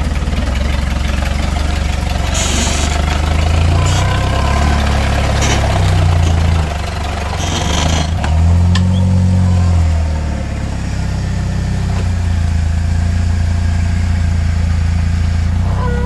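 Jeep Wrangler rock crawler's engine running at low speed and revving up and down repeatedly as it works the lifted front wheel up a rock and clay ledge. Two short bursts of higher noise come about two and a half and seven and a half seconds in.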